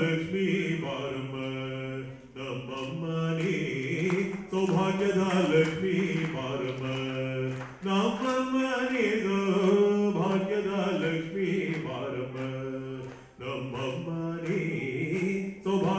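A man singing into a microphone over a PA, long held melodic phrases in an Indian chant-like style, broken by short pauses for breath.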